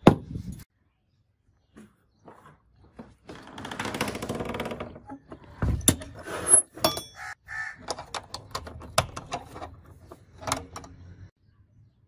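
Metal hardware handled: a sharp click at the start, a scraping stretch about three seconds in as a steel door barrel bolt slides, then a run of sharp metal clicks and knocks from the hasp and a small steel padlock.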